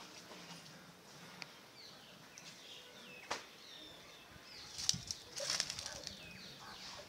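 Birds calling with short, high falling chirps, a couple of sharp clicks, and a louder burst of rustling or flapping about five seconds in.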